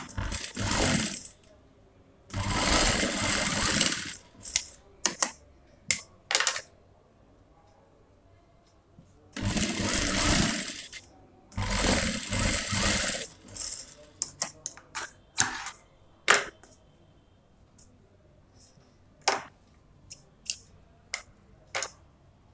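Industrial single-needle lockstitch sewing machine stitching through cloth in four short runs: two early on, then two more about nine and eleven and a half seconds in, each one to two seconds long. Sharp clicks and taps come between and after the runs.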